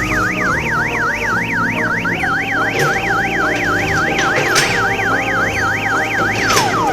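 Electronic siren from an odong-odong mini tourist ride, warbling rapidly up and down about three to four times a second over music. Near the end it switches to a fast run of falling chirps.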